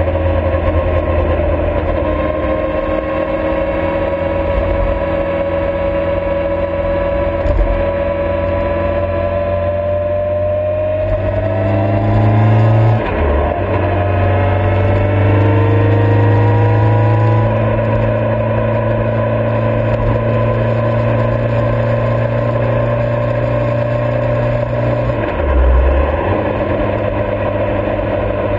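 Motorcycle engine running under way, heard from a camera mounted on the bike, its pitch climbing as it accelerates, with a gear change about halfway through and another short break near the end.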